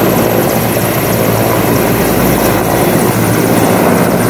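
Indian Air Force Mi-17 transport helicopter's main rotor and twin turboshaft engines running loud and steady as it climbs away just after lift-off.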